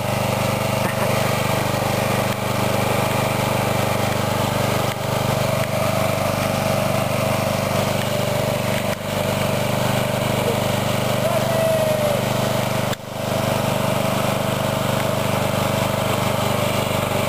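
Engine of an Ariens rear-engine riding lawnmower running steadily as the mower drives along in a wheelie with its front wheels off the ground.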